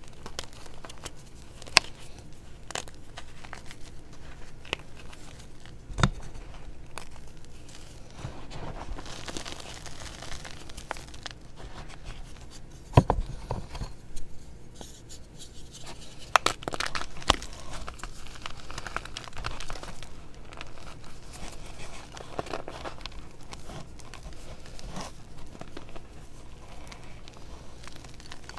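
Reformed gym chalk crushed and crumbled by hand in a tray of loose chalk powder: a dry, gritty crunching with several sharp cracks, the loudest about six and thirteen seconds in.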